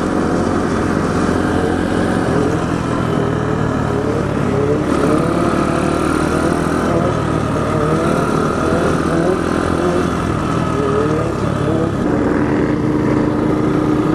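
Small mini trail bike engines running as a group rides, with many short revs rising in pitch one after another, over a steady low rush of riding noise.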